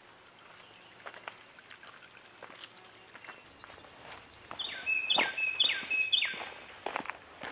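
A hiker's footsteps on a trail, faint at first and becoming loud about halfway through, roughly two steps a second. A bird sings a loud, repeated whistled phrase over the later steps.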